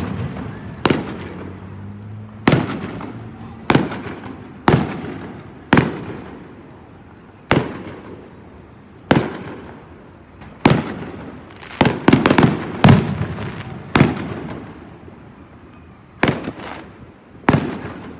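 Fireworks display: aerial shells bursting one after another, a sharp bang every second or two, each trailing off in a rumbling echo, with a quick run of several bangs a little past the middle.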